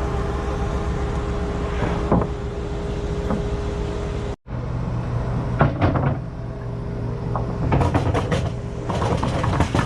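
Machinery engine running steadily, with scattered knocks and clatters. The sound cuts off abruptly about four seconds in, and a deeper engine note carries on after it.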